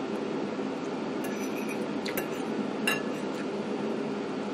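A metal fork clinking lightly on a ceramic dinner plate, three clicks about a second apart, over a steady background hum.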